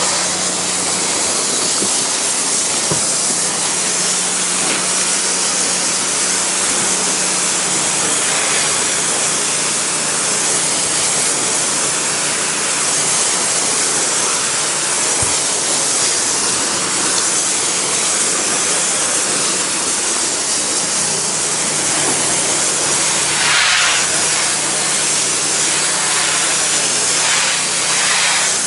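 Pressure washer spraying water at low pressure onto a painted wood deck: a steady, loud hiss of spray over the even hum of the washer's engine and pump, whose pitch dips slightly about two-thirds of the way through.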